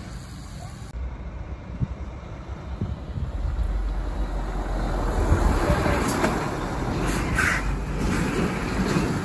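Road traffic: a motor vehicle's engine and tyre rumble grows louder from about three seconds in and stays up.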